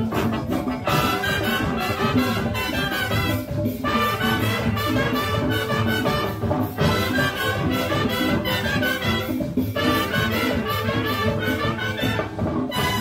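Marching band playing a Latin-style tune: trumpets and trombones over drums and percussion, in phrases with short breaks about every three seconds.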